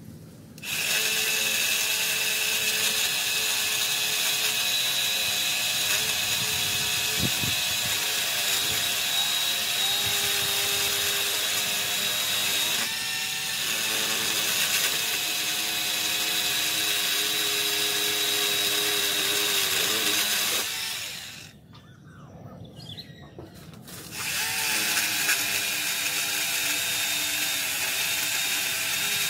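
Worx WG368E 40V cordless electric chainsaw running with a steady high-pitched motor whine. It stops for about three seconds about two-thirds of the way through, then starts again.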